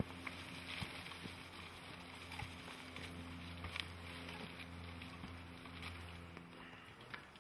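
Footsteps and rustling through dry undergrowth on a path, scattered faint crackles, over a steady low hum that fades out near the end.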